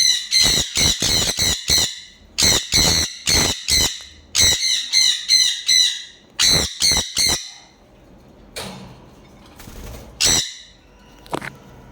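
Sun conure screeching: shrill calls repeated about four to five a second in four bouts of a second or two each, then one more call near the end.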